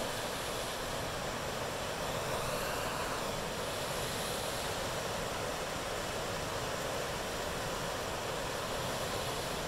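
Swollen, flooding creek: fast brown water rushing steadily and churning around trees in the channel, a continuous even rush with no breaks.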